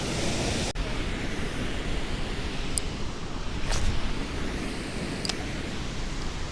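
Steady rushing outdoor noise with a few faint clicks around the middle.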